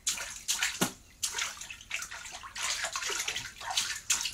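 Bathwater splashing and sloshing as a toddler's hands swish and slap wet clothes around in a bathtub, in irregular splashes several times a second.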